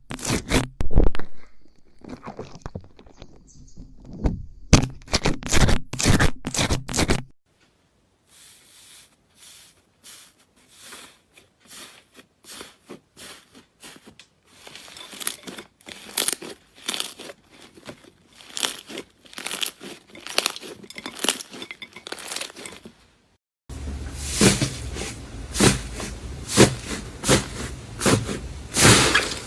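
Slime being squished and pressed, giving rapid runs of crunchy, crackling clicks; the sound changes abruptly about 7 seconds in and again about 24 seconds in, as one slime gives way to another.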